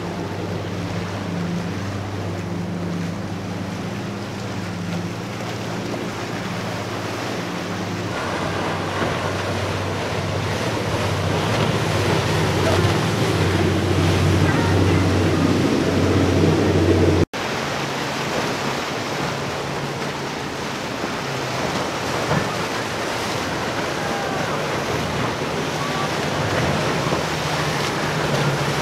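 Boat outboard motors running at speed with a steady low drone, over the rush of wake and waves and wind on the microphone. The drone grows louder as a boat passes close, then cuts off suddenly about two-thirds of the way in, and another boat's drone takes over.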